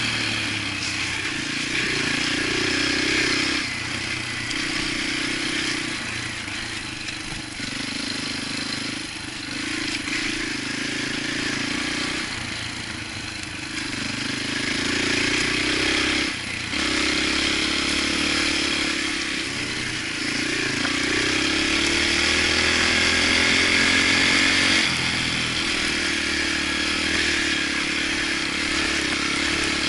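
Yamaha TTR125 dirt bike's single-cylinder four-stroke engine running on a trail ride, its revs rising and falling as the throttle is opened and closed, with brief drops every few seconds.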